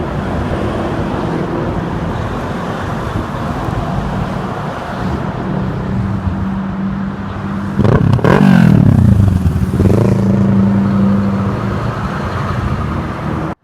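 Semi-trucks running past on an interstate, their engines droning steadily. About eight seconds in, one passes close and the sound grows louder for a couple of seconds, its engine pitch sliding as it goes by. The sound cuts off suddenly at the end.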